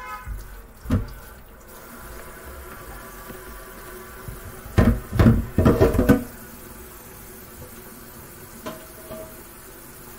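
Kitchen tap running water into a stainless steel sink while a cooking pot is rinsed. About five seconds in there is a cluster of loud clunks as the pot knocks against the sink, with a single knock about a second in.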